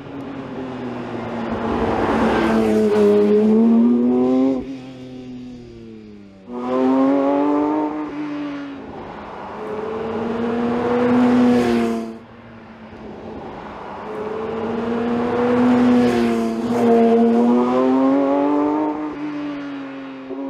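Porsche 911 S/T's naturally aspirated flat-six engine under hard acceleration, its note rising and bending with the throttle in long swells. It cuts off sharply about four and a half seconds in and again about twelve seconds in, as the driver lifts off, then picks up again strongly.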